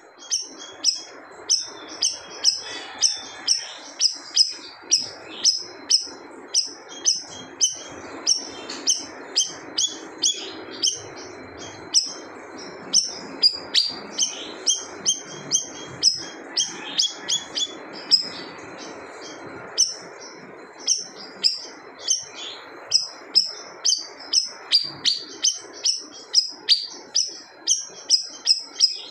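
A siri-siri songbird singing hard, in a fast unbroken run of short, sharp high chirps, about two to three a second, over a steady low background noise.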